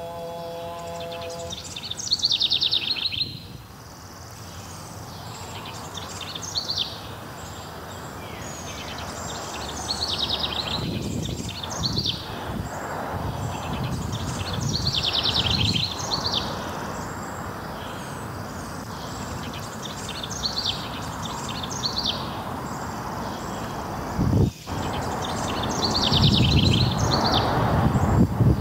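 Small birds singing short, rapid trilled phrases every few seconds over steady outdoor background noise. A man's held sung note, the end of the call to prayer, fades out in the first second or so.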